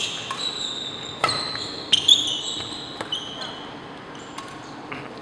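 A badminton rally: rackets strike the shuttlecock with a string of sharp hits, and shoes give brief high squeaks on the court floor, the loudest about two seconds in.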